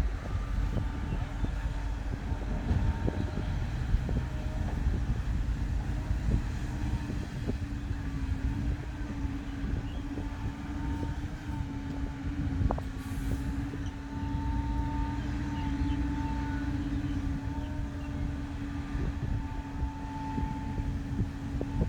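Heavy diesel machinery running steadily while an excavator loads soil into a dump truck, with a constant hum and a few scattered knocks.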